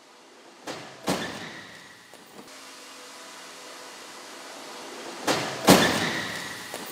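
A 2013 Mercedes-Benz C250 at 20 km/h running into the back of a stationary car in a rear-end crash test, its automatic braking not having stopped it. The impact is heard twice: a light knock, then a louder thud that trails off in a rattling hiss. The first comes about a second in, the second about five and a half seconds in.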